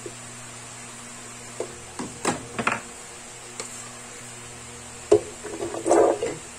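Knocks of a plastic blender jar being handled and set down on its base, then chickpeas tipped into the empty jar, clattering against the plastic; the clatter is the loudest part, about a second before the end. A steady low hum lies underneath.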